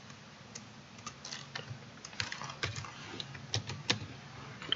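Computer keyboard being typed on: an irregular run of key clicks as a password is entered.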